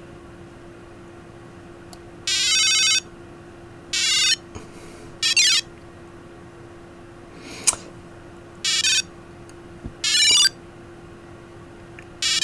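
Digimon virtual-pet wristband beeping its battle sound effects through its tiny speaker: about seven short bursts of high electronic warbling, some falling in pitch, as the battle plays out.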